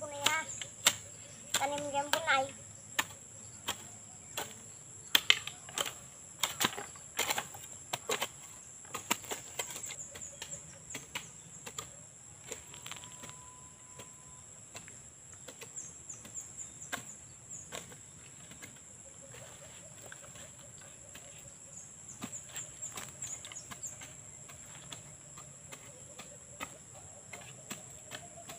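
Hoes chopping and scraping into soil while weeding: irregular sharp knocks, thick in the first third, then sparser. A steady high insect drone runs underneath.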